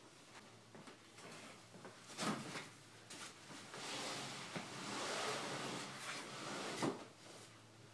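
Wooden furniture being handled and shifted: a few sharp knocks and a longer scraping, sliding noise in the middle.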